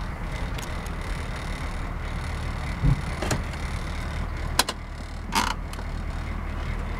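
Diesel engine of a 1984 Chevrolet Suburban idling steadily. About halfway through come a low thump, a few sharp clicks and a short scrape.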